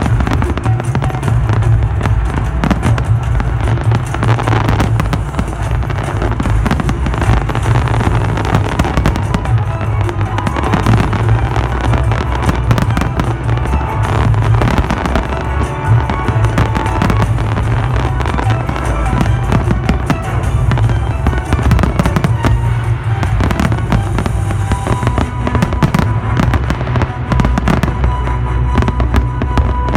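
Fireworks display going off without a break: a dense run of bangs and crackling, with music playing underneath.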